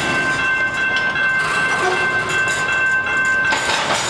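A freight train rolling past close by, its cars running steadily with a high-pitched squeal held throughout.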